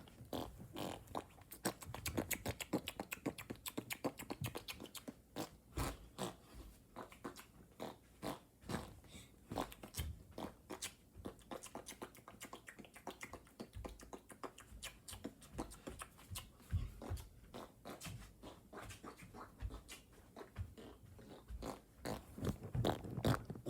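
Close-miked mouth sounds for ASMR: wet clicks, smacks and tongue pops in quick, irregular succession.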